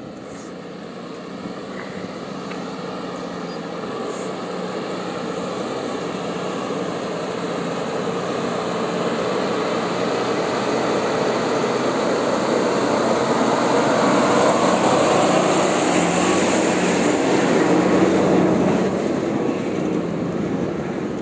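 Diesel tipper truck driving past on a dirt site: engine and tyre noise build steadily, peak, then fade near the end. A steady engine hum runs underneath, from the working excavator.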